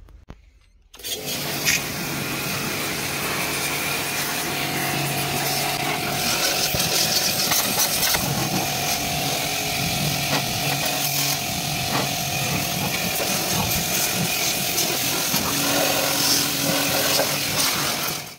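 A power tool running steadily, starting about a second in, with an even rasping noise over a faint steady motor tone.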